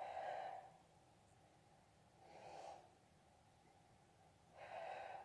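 A woman breathing out hard three times, about two seconds apart, in time with the effort of each crunch repetition. The breaths are faint.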